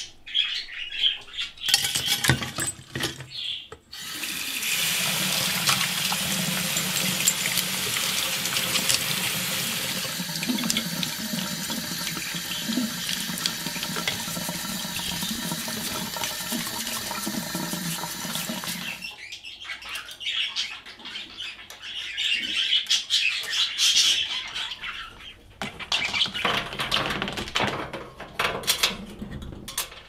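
Water running steadily from a tap into a sink, starting about four seconds in and stopping about fifteen seconds later. Short, scattered clattering sounds come before and after it.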